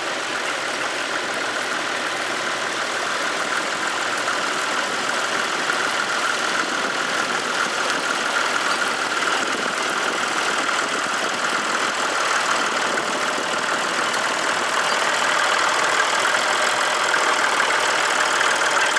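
Tractor engine running steadily, growing gradually louder.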